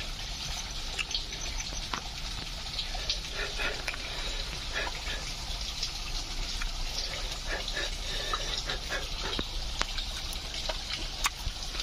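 Steady rush of running water, with scattered soft clicks and mouth sounds of someone picking at and chewing cooked fish close by.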